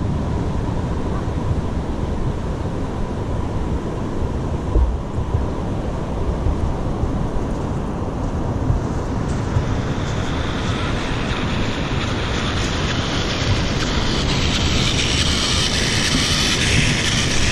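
Radio-controlled truck running over hard beach sand with a camera mounted on its chassis: a gusty rumble of wind and motion on the microphone, and from about ten seconds in a growing hiss of tyres and drivetrain.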